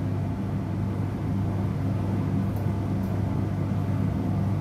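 Steady low hum of a laboratory fume hood's extraction fan.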